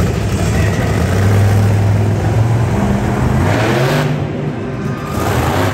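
Monster truck engine revving hard, rising in pitch about three seconds in as the truck accelerates and rears up on its back wheels.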